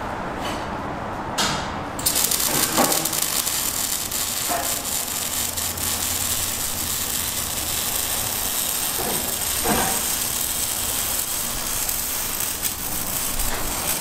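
Arc welding on a car's exhaust piping: a steady hissing crackle that starts about two seconds in, with a few faint knocks.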